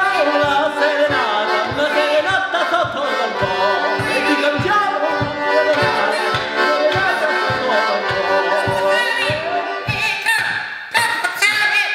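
Button accordion played with a steady bass beat of about two to three pulses a second under a melody, with a man's voice singing along.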